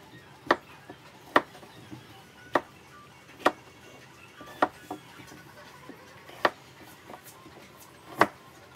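A cleaver chopping a bitter melon on a bamboo cutting board: about seven sharp knocks of the blade striking the board as each piece is cut through, roughly one a second with a longer pause near the end.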